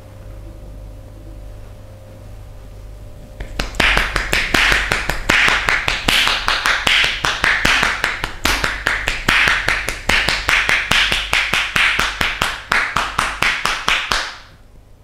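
Percussive massage strokes: hands striking the body in a fast, even run of sharp claps, about six a second. The run starts a few seconds in and stops about a second before the end.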